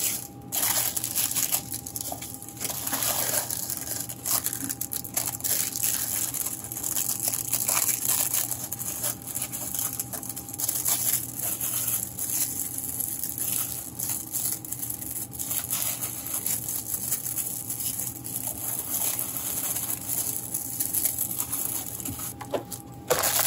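Plastic wrappers and tissue paper crinkling as clear-bagged pens and gift items are handled and packed into a wooden box: an irregular run of rustles and small crackles.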